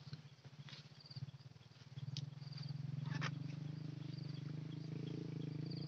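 A low, pulsing hum that swells about two seconds in and then holds steady. Over it come a few brief crackles of a woven plastic sack being handled as cucumbers are packed, and a short high chirp that repeats about once a second.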